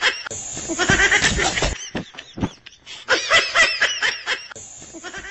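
Rapid, high-pitched laughter in quick pulses, with a second matching burst of laughter about three seconds in.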